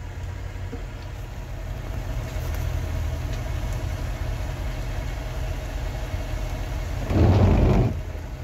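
Fire engine idling with a steady low rumble. A loud rushing burst lasting about a second comes near the end.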